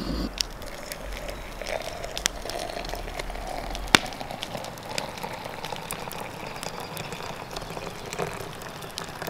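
Gas camp-stove burner burning with a low steady hum and a few clicks. After a sharp click about four seconds in, water pours into a glass French press of coffee grounds.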